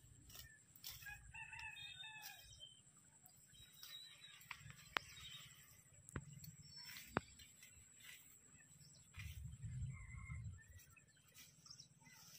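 A rooster crowing faintly in the distance, with a few sharp clicks around the middle.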